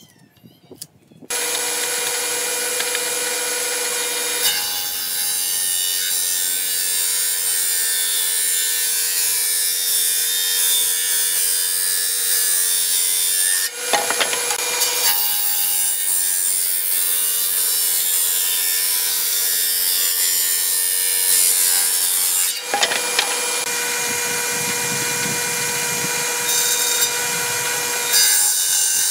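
Hitachi table saw switched on about a second in, then running steadily with a constant hum and a high hiss from the spinning blade, cutting a wooden pallet block near the end.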